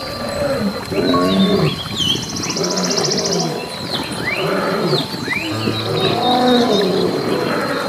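Several animals calling over one another in short, overlapping calls, with bird chirps and a brief buzzy trill above them and a steady high whine throughout.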